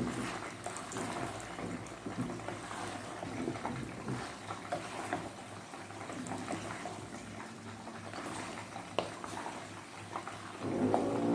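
A wooden spoon stirring noodles and vegetables in a steaming steel pot, with a soft bubbling hiss from the cooking food and scattered light knocks of the spoon against the pot. Near the end a drawn-out pitched call, like an animal's, begins.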